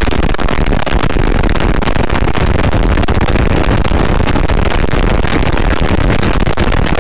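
Loud, steady rush of wind buffeting an external lapel mic on a GoPro Hero 8 at highway speed on a motorcycle, with engine and road noise mixed in beneath. The noise drowns out the rider's voice entirely on the 'Standard mic +' setting.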